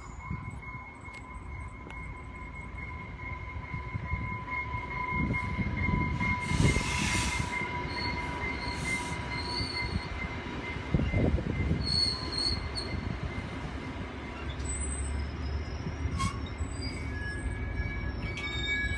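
Exo commuter train of bilevel coaches rolling along the platform, with a steady high squeal for the first half as it comes in. The noise grows louder from a few seconds in, with rushes of noise and short wheel squeals as the cars pass.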